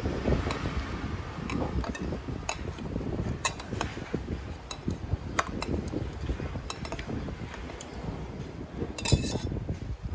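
Stainless steel muddler crushing lychees in a stainless steel cocktail shaker: irregular dull thuds with sharp metallic clinks as it knocks the shaker's walls, and a louder clink about nine seconds in.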